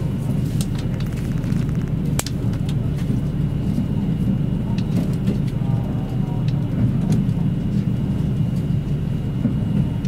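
Running noise of a KiHa 85 series diesel express heard from inside the cabin: a steady low rumble of the engines and wheels on the rails, with a few sharp clicks, the loudest about two seconds in.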